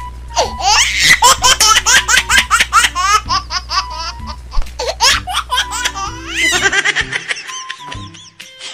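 High-pitched laughter in quick repeated bursts, over background music whose low bass drops out about seven seconds in.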